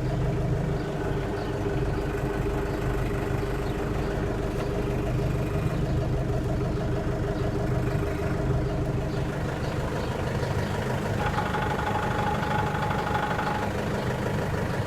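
Lovol 504 tractor's diesel engine running steadily at idle. From about eleven seconds in, a steady high whine sounds over it for roughly two and a half seconds, then stops.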